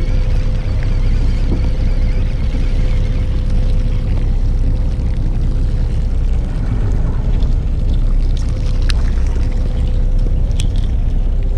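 Fishing boat's engine running steadily: a low rumble with a constant hum, and a few light clicks in the last few seconds.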